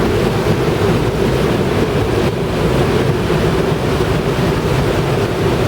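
Boat engine running steadily at cruising speed, with wind buffeting the microphone and water rushing past the hull.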